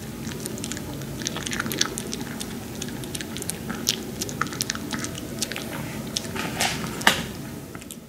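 Maltese dog eating dry kibble from a person's palm: irregular crisp crunches and chewing clicks, with one louder crunch near the end.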